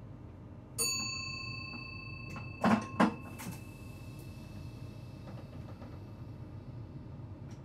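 A single bell-like ding in the train cab that rings on and slowly fades, followed shortly by two sharp clunks about a third of a second apart, over the steady low hum of the stationary train.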